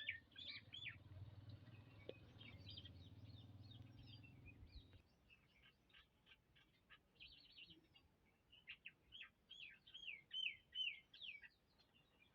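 Small birds chirping faintly, with many short high chirps that come thickest in the second half. A low hum sits underneath and stops about five seconds in.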